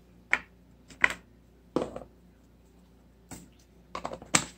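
A handful of sharp clicks and taps from slime-making supplies being handled, spaced irregularly about a second apart, with a quick cluster near the end.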